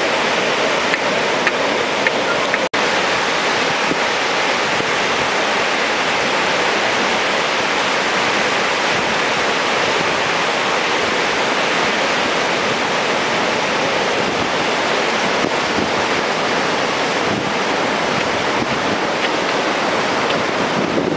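Storm surf breaking on a sandy beach, mixed with wind buffeting the microphone: a loud, steady rushing noise. It drops out for an instant about three seconds in.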